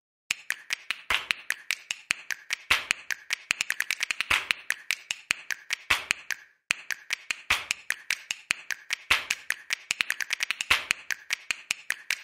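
Typing sound effect: a rapid run of sharp key clicks, about five or six a second, with a short pause a little past the middle.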